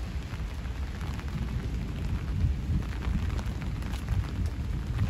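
Wind buffeting the microphone, a low, uneven rumble, over a steady hiss of light rain.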